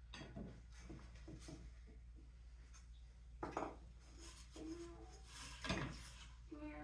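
Small wooden pieces handled and set down: light knocks and rubbing clatters, with two louder knocks a little after halfway.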